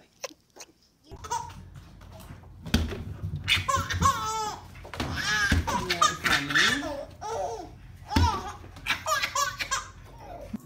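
A baby laughing in several bursts of high, wavering laughter over a low room hum.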